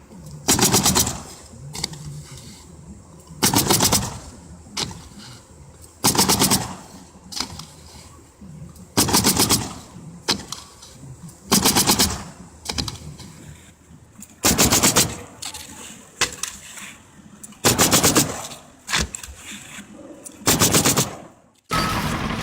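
Pneumatic roofing nailer bump-firing: eight quick strings of rapid nail shots, each about half a second long, coming roughly every three seconds as a roofer nails shingles at speed, with quieter shuffling between strings.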